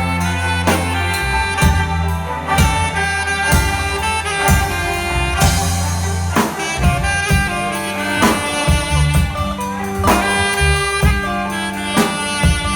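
Saxophone playing a melody over a backing track with drum kit and bass, with a steady drum beat of about one hit a second.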